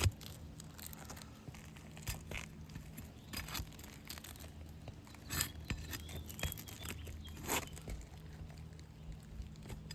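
Asphalt shingle being worked loose from its sealant strip: scattered crackles, scrapes and sharp clicks as it is pried and peeled, over a steady low hum.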